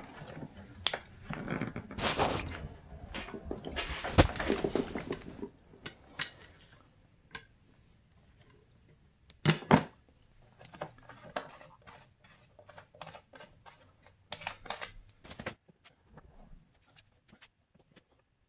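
Scraping and tapping of a small tool against the plastic tank and nut as epoxy is worked into the grooves of the nut's hole. Several seconds of scratchy scraping, then scattered clicks, with a sharp double click about halfway through.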